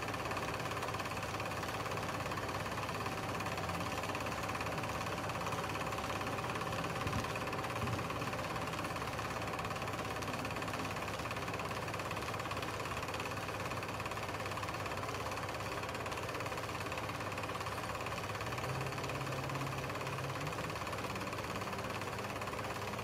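Steady rapid mechanical clatter and hiss of a film projector running an 8 mm home movie.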